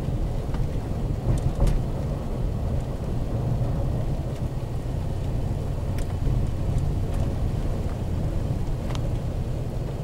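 Pickup truck driving slowly over a snow-covered road, heard from inside the cab: a steady low rumble of engine and tyres, with a few faint clicks.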